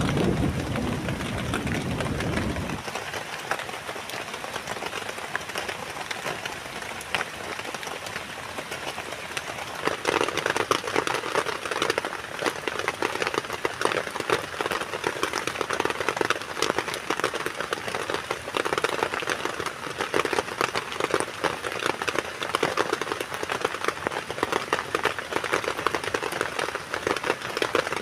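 Heavy rain pattering densely on a tent, with a low rumble of thunder that ends about three seconds in. The rain grows louder about ten seconds in and keeps up a dense patter.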